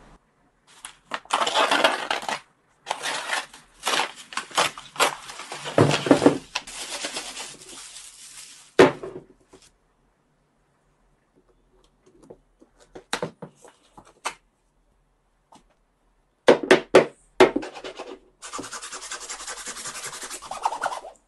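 A crumpled paper mailer bag being opened and handled, crinkling and rustling in long stretches through the first nine seconds. After a lull come a few sharp taps, then hands rubbing over a pair of football boots with plastic studs near the end.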